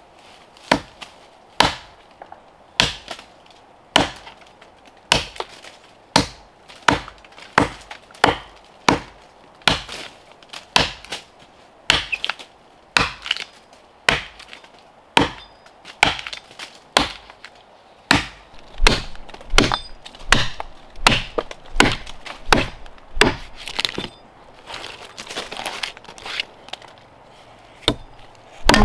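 Axe chopping into a standing tree trunk: a steady run of sharp blows about one a second, quickening to nearly two a second in the second half.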